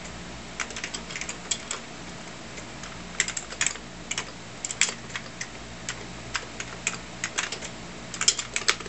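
Typing on a computer keyboard: irregular clusters of key clicks, with a quick flurry near the end, over a faint steady low hum.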